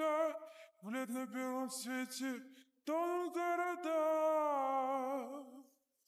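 A single voice singing without accompaniment: a phrase of short, quick syllables, then after a brief break a long held note that fades out near the end.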